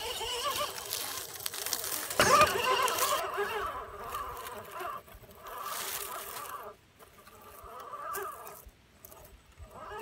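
Electric motor and gearbox of an RC4WD Trailfinder 2 scale crawler whining, the pitch rising and falling with the throttle, while its tires crackle over rocks and dry leaves. Loudest about two seconds in, then quieter and more stop-start in the last few seconds.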